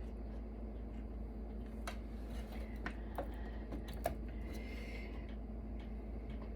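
A few light clicks and taps of metal and plastic server parts being handled, the loudest about four seconds in, with a short faint scrape just before five seconds, over a steady low hum.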